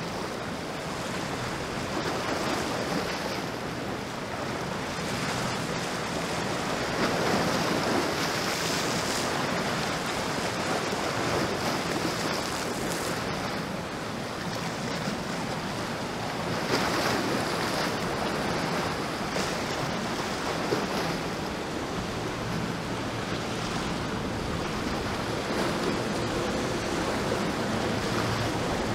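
Surf and breaking waves with wind buffeting the microphone, swelling louder twice, about seven and seventeen seconds in. Underneath is a low steady drone from the engines of an Issa 45 motor yacht running through the chop.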